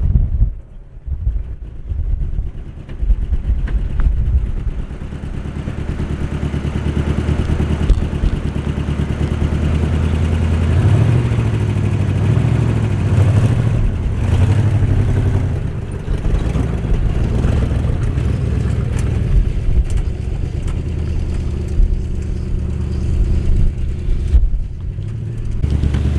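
1973 Chevy Scottsdale 30 pickup's 350 V8 running as the truck is driven, the engine speeding up from about ten seconds in, then settling back to a steady run.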